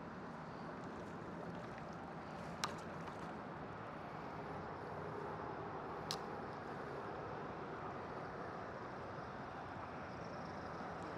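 Steady low rushing background noise with two short sharp clicks, one about two and a half seconds in and one about six seconds in.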